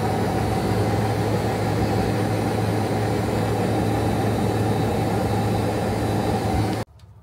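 Electric EZGO golf cart driving on its 48 V lithium battery: a steady motor hum under wind and tyre noise. It cuts off suddenly near the end.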